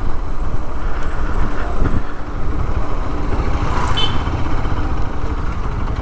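Motorcycle running through town traffic, heard as a steady low rumble mixed with wind buffeting on the rider's microphone. A brief high tone sounds about four seconds in.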